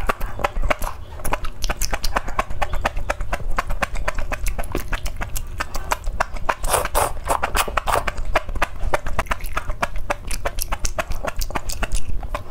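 Close-miked mukbang eating sounds: rapid, wet crunching and chewing of chili-oil-dressed cabbage and enoki mushrooms, with slurping as strands of enoki are drawn into the mouth, loudest around the middle.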